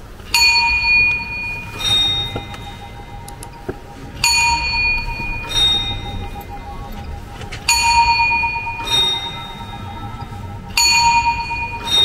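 Bells of the Strasbourg Cathedral astronomical clock struck in ding-dong pairs, a higher note then a lower one, four times at even spacing, each note ringing on in the cathedral's echo.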